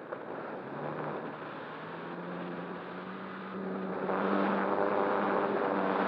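Wind rushing over the RC ASW 28 glider's onboard camera, and about a second in its motor and nose propeller start, a hum that rises a little in pitch and then holds steady. About four seconds in it gets louder and fuller as the throttle is opened further and the model climbs under power.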